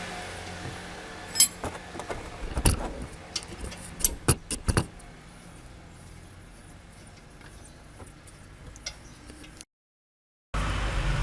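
A run of sharp metallic clicks and knocks from tools and parts being handled on a car's front brake and suspension, then a quieter spell. After a brief cut near the end, a steady low rumble starts.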